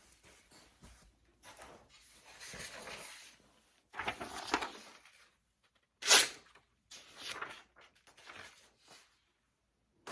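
Pocket knife's steel blade being drawn across a combination oil sharpening stone: a series of rasping strokes, each under a second long and unevenly spaced, the loudest and sharpest about six seconds in.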